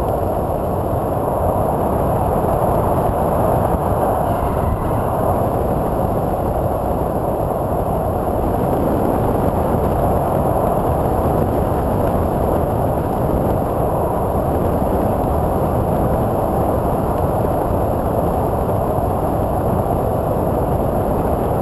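Steady rush of airflow and twin electric-motor propeller noise, recorded on board a TwinStar II RC plane in flight on 8x6 props. The sound is loud and even, with no change in pitch or level.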